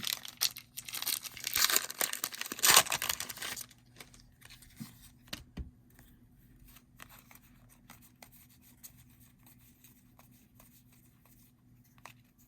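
A pack of football trading cards being torn open, its wrapper crinkling and ripping for about the first three and a half seconds. Then a few faint ticks as the cards are handled.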